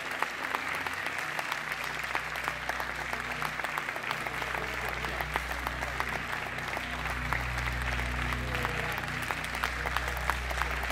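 A large audience applauding: the dense, steady clapping of many hands, with a low hum underneath that grows stronger from about four seconds in.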